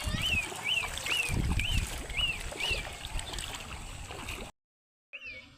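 Water sloshing and gurgling, with a repeated short high chirp about three times a second over it. The sound cuts out briefly near the end, then resumes.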